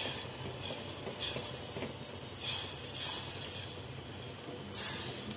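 Spatula stirring a thin tamarind gravy in a steel pot, with irregular soft scraping and sloshing strokes over a steady low sizzle.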